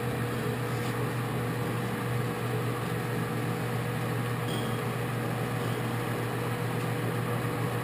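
American Machine Tool Turnmaster 13 x 40 engine lathe running with its spindle turning at about 200 rpm, a steady, even machine hum with a constant tone.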